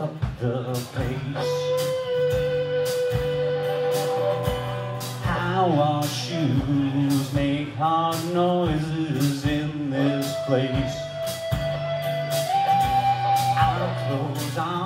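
Live rock band playing an instrumental passage: an electric guitar lead with long held and bent notes over a steady drum-kit beat and strummed acoustic guitar.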